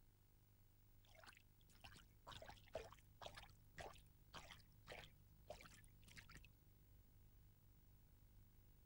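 Faint, wet splashing footsteps of a cartoon donkey wading through a shallow pond, about ten steps at roughly two a second, which stop about two-thirds of the way through.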